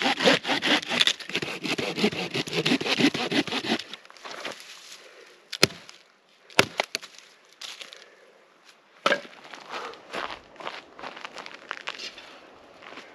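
Curved-blade pruning saw cutting through a dead pine branch in quick, even strokes, about four a second, which stop about four seconds in. Then two sharp knocks a second apart, and later a thump followed by scuffing.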